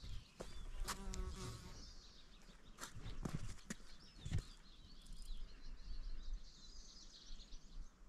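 Open-air ambience: a flying insect buzzes briefly about a second in, and small birds chirp high and thin, most busily near the end. Several sharp knocks and a low rumble of wind on the microphone run underneath.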